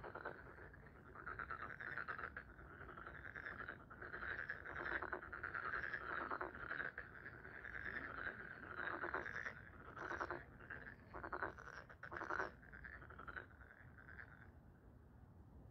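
A chorus of frogs croaking, many calls overlapping in a dense trilling din, louder through the middle and easing off a little near the end.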